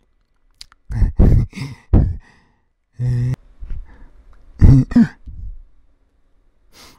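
A man's wordless vocal noises: several breathy sighs and grunts, with a short hummed note about three seconds in.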